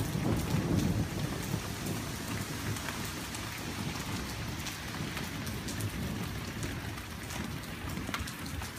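Steady rain falling, with scattered drops ticking sharply close by. A low rumble of thunder dies away over the first second or so.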